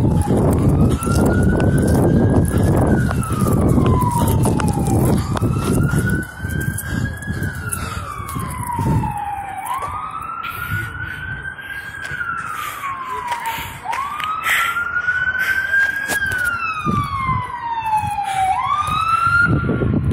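Fire apparatus siren wailing, its pitch slowly rising and falling through five cycles about four to five seconds apart. Heavy low rumbling runs under it, loudest for the first few seconds.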